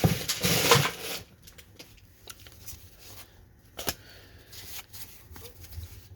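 Baseball cards from a freshly opened 1991 Topps pack being handled and sorted by hand. A loud papery rustle lasts for the first second or so, then faint sliding and rustling with a light click about four seconds in.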